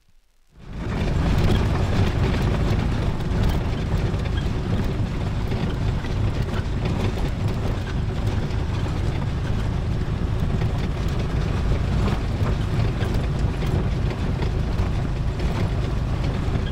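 Steady, loud rumbling and rattling of a vehicle in motion, starting suddenly about half a second in.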